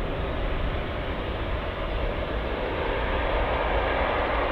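Airbus A330's Rolls-Royce Trent 700 jet engines running as the airliner rolls along the runway after landing: a steady jet rumble and hiss that grows slightly louder.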